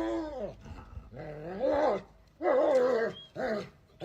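A dog giving a run of drawn-out, wavering vocal calls, about four in a row, each rising and falling in pitch, like a dog howling or "talking".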